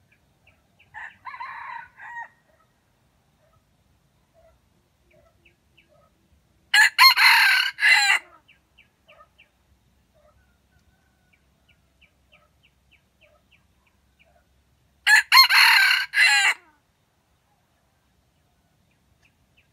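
Red junglefowl (wild chicken) rooster crowing twice, each crow loud and about a second and a half long, the second coming about eight seconds after the first. A fainter, shorter call comes about a second in.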